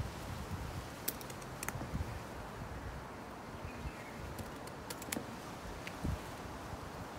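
A handful of light, sharp clicks from pruning shears being worked on a kukui stem, over a steady outdoor background hiss.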